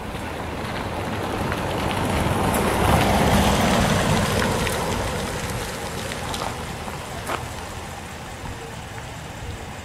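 A road vehicle driving past, its tyre and engine noise growing louder to about three or four seconds in and then fading away.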